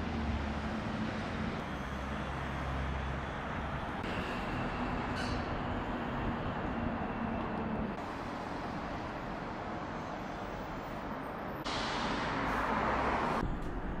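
City street traffic: a steady rush of road noise from passing cars with a low engine hum. Near the end a louder hiss lasts about a second and a half and stops abruptly.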